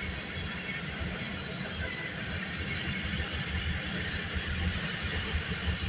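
Canadian National freight train rolling past, a steady rumble.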